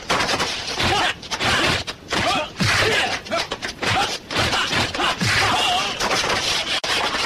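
Martial arts film fight soundtrack: a rapid series of punch and kick impact effects and swishes, with the fighters' short shouts and grunts among them.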